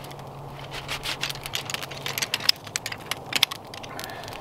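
Metal poles of an ultralight folding camping chair being handled and fitted together: a quick run of sharp clicks and rattles, loudest in the middle, over a crackling campfire.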